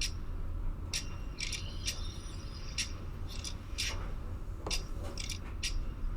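About ten irregular sharp metallic clicks and clinks, some ringing briefly, of small lock hardware being handled, over a low steady hum.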